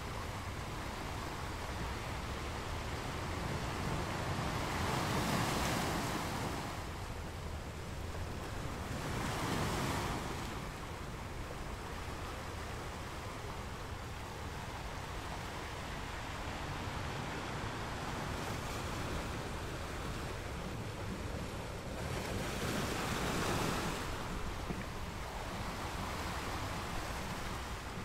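Ocean waves: a steady wash of surf that swells three times as larger waves break.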